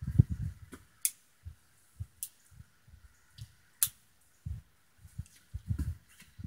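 Sharp metallic clicks, spaced about a second apart, from handling an 1889 Bodeo revolver as it is readied to fire, with soft handling thumps at the start and again near the end. No shot is fired.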